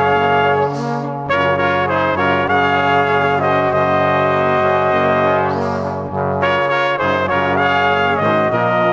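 Background music led by brass, with trumpet and trombone holding sustained notes that change every second or so, broken by two short breaks about one and six seconds in.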